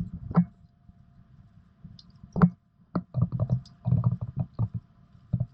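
Hand tool turning a bolt into the e-bike's handlebar clamp: irregular metal clicks and knocks with low handling thumps, the sharpest knock about halfway through.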